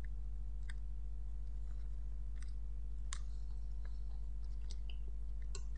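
Scattered faint mouth clicks and lip smacks of someone chewing a soft blueberry mochi, over a steady low electrical hum.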